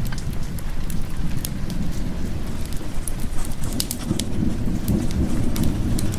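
Steady rain with a low, rolling rumble of thunder that swells about four seconds in, and scattered sharp crackling clicks throughout.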